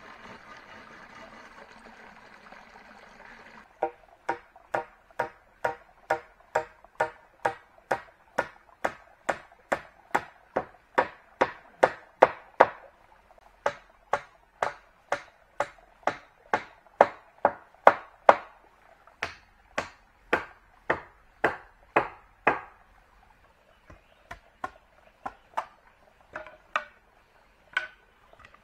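Repeated chopping, a blade striking wood at about two strokes a second, with a short pause midway. The strokes turn lighter and sparser near the end, after a few seconds of steady hiss at the start.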